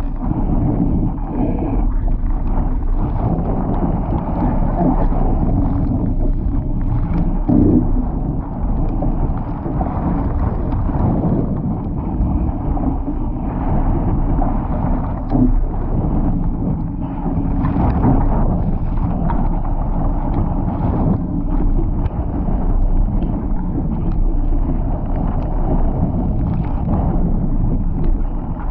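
Wind buffeting the microphone over water rushing and splashing along the hull of a Laser dinghy sailing fast in strong, gusty wind, with irregular louder surges of spray.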